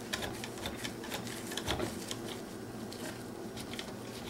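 Light, irregular clicks and taps of a steel nut driver turning a screw in the dishwasher motor's sheet-metal mounting brace, loosening it to free the motor, over a faint steady hum.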